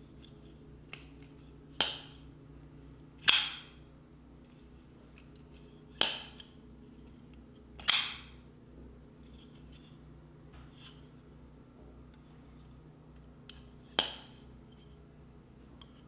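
TwoSun 412 folding knife with a D2 steel blade and titanium handle being flipped open and shut by hand: five sharp metallic snaps as the blade swings home, about two, three, six, eight and fourteen seconds in, with a few fainter clicks between. A low steady hum runs underneath.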